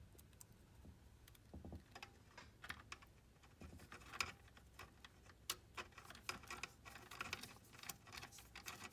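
Faint, irregular small clicks and taps of a flexible-shaft nut driver and a screw working against a slide projector's sheet-metal mounting plate, as the adjustment screw is set in.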